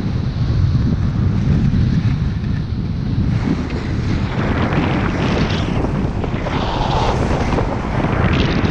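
Wind buffeting a GoPro Hero5's microphone as a skier heads down a steep slope, a steady low rumble. Skis hiss and scrape over packed snow, with louder surges of hiss about halfway through and again near the end.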